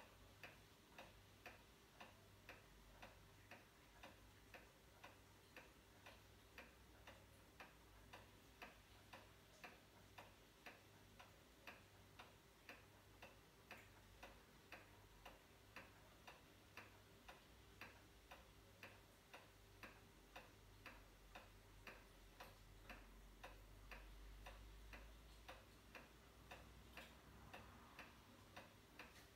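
Vintage American eight-day wall clock ticking steadily and faintly, about two ticks a second, the regular beat of its pendulum movement.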